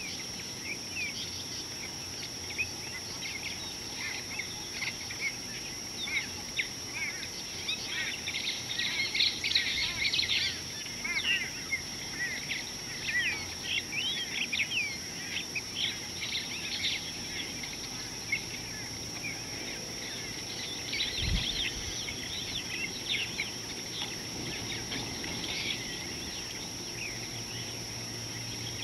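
Wild birds chirping and calling in many quick, short, high notes, busiest in the first half and again near the end, over a steady high-pitched insect whine.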